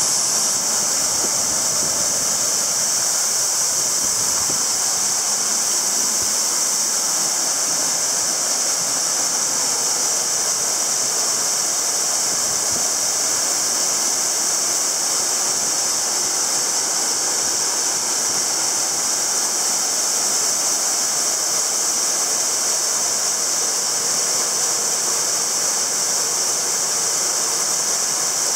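Waterfall plunging into a rock pool: a steady rushing hiss of falling water.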